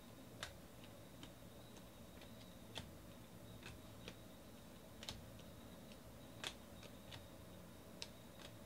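2019 Donruss Optic baseball cards being sorted by hand, each card flicked off the stack or slid behind it with a light, sharp click, about ten irregular clicks roughly one a second. Under the clicks runs a faint, steady high-pitched tone.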